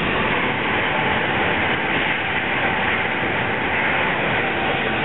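Steady loud rushing hiss of railway noise: BR Standard Class 7 'Britannia' steam locomotive No. 70000 venting steam, with a train passing on the adjacent line.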